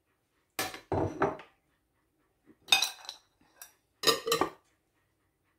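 A spoon knocking and scraping against a bowl, with dishes clinking, in four short bursts of clatter: the bowl is being emptied of its sauce.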